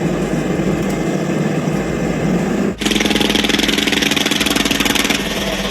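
Engine running steadily. About three seconds in, it cuts abruptly to a harsher, fast-pulsing engine sound.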